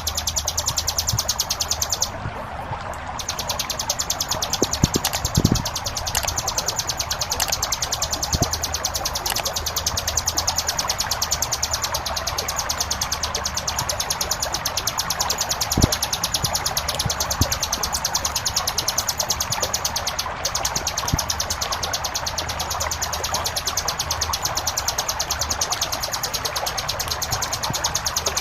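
Ciblek gunung (a mountain prinia) singing a rapid drilling trill (ngebren) with only short gaps, over a steady rush of flowing water.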